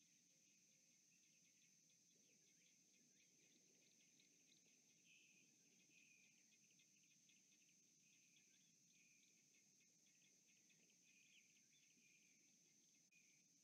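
Faint insect chorus: a steady high-pitched trill with scattered short chirps over it.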